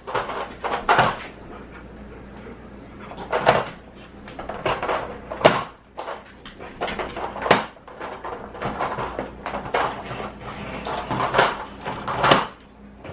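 A pit bull nosing and pawing a hard plastic puzzle treat-dispenser toy on a hardwood floor: irregular clacks and knocks as its sliding pieces and flaps are pushed and the toy shifts. The sharpest knocks come about five and a half and seven and a half seconds in.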